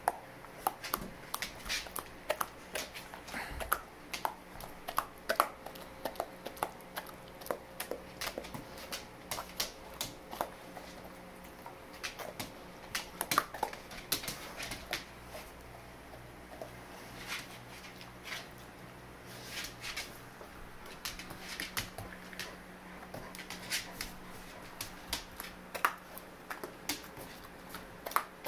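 Senior dog eating cooked spaghetti from a hand: irregular wet smacking and clicking of its jaws and teeth, several sharp clicks a second with short pauses.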